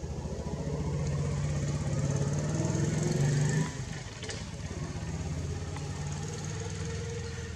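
A motor engine running with a steady low pulsing hum. It grows louder until about halfway through, then drops suddenly and carries on more quietly.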